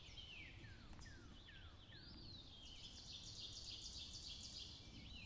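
Faint songbirds singing in spring woodland: a run of short falling whistles, then about halfway through a quick series of high chattering notes.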